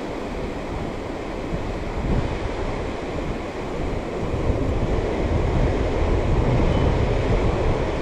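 Ocean surf washing on the beach, with wind buffeting the microphone in a low rumble that grows stronger about two seconds in.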